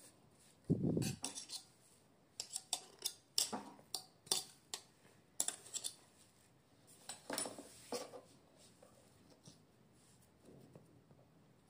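Silicone spatula scraping and knocking against the stainless steel bowl of a food processor as thick ground peanut paste is worked off the sides: a dull thump about a second in, then a string of short, irregular scrapes and taps.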